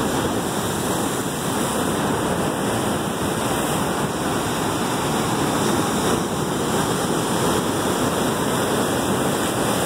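Ocean waves breaking against the boulders of a rock jetty: a steady roar of surf and spray.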